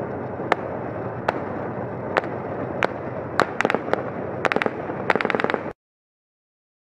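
Small-arms gunfire during an urban tank-and-infantry assault: single sharp shots about a second apart, quickening into short rapid bursts, over the steady noise of a tank's engine running. The sound cuts off suddenly near the end.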